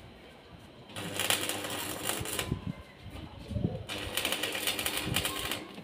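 Electric arc welding on a steel window grille: two bursts of dense crackle and sizzle, about a second and a half each, starting about a second in and again about four seconds in, with a few low knocks between.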